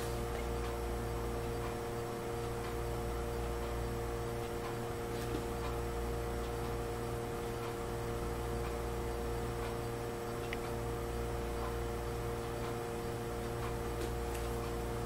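Steady electrical hum with several steady tones in it, and now and then a faint click.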